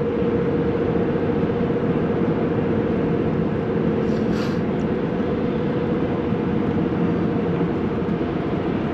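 Steady road and engine noise inside a vehicle's cabin at motorway speed, with a constant drone-like hum. A short hiss comes about four seconds in.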